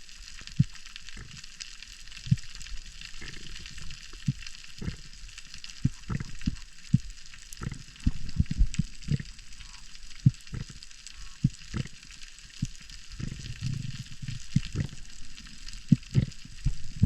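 Underwater ambience recorded by a diving camera: a steady sizzling crackle, with irregular low thumps and knocks throughout.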